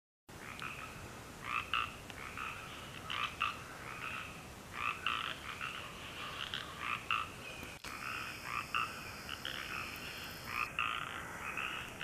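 Chorus of many frogs croaking, short calls overlapping and repeating without pause.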